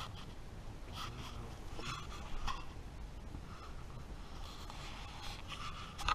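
Rustling and rubbing of fabric close to the microphone, with several brief scrapes, from the hammock and padded sleeping bag moving against the camera. There is a sharper knock near the end as the camera is handled.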